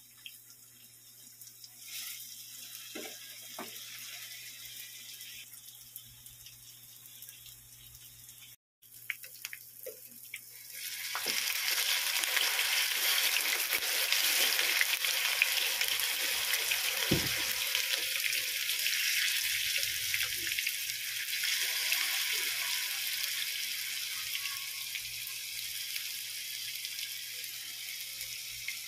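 Tofu frying in hot oil in a nonstick pan, sizzling. The sizzle is faint at first, with a few light knocks of tongs on the pan. It turns loud about a third of the way in, then slowly dies down.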